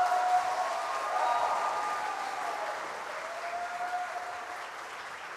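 Theatre audience applauding and cheering at the end of a performance, the applause slowly dying down.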